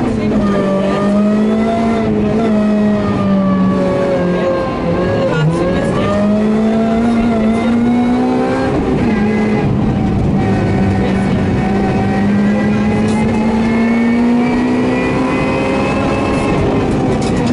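Rally car engine heard from inside the cabin, running hard under load, its pitch rising and falling with the revs; the revs drop sharply about five seconds in and briefly again about nine seconds in, then climb slowly.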